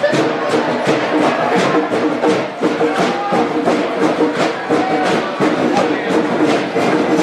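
Brass-and-drum music with a fast, steady drum beat, about three strokes a second, under sustained horn notes.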